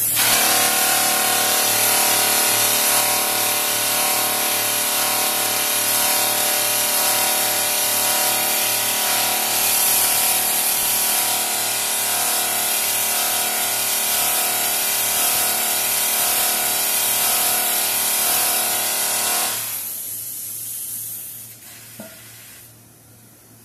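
Emery flap wheel grinding the outer side of a spinning stainless steel pot: a loud steady hiss over a ringing hum of many steady tones. About 19 seconds in the grinding stops and the sound dies away, with a single click a couple of seconds later.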